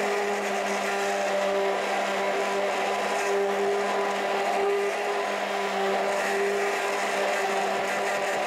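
Hand-held stick blender running steadily at one constant pitch, its blade churning pears, pistachios and goat milk into a milkshake in a plastic jug.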